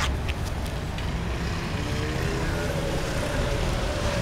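Street traffic: a steady rumble of passing vehicles, with one engine's pitch slowly rising in the second half.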